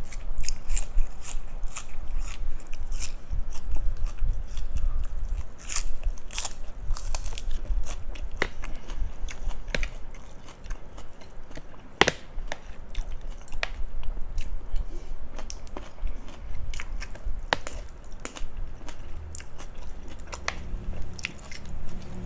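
Close-up chewing and biting of crunchy food, spicy cucumber salad with crispy pork rinds, with many sharp crunches scattered through the low, steady chewing.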